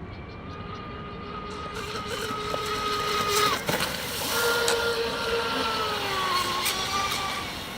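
Electric RC speedboat's brushless motor whining at speed. The pitch steps up a little about four seconds in and drops back near the end. The sound grows louder toward the middle and fades as the boat runs away.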